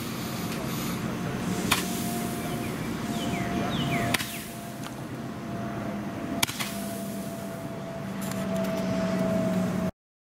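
Roman candle firing, a sharp pop about every two and a half seconds as each ball is shot out, over a steady low hum.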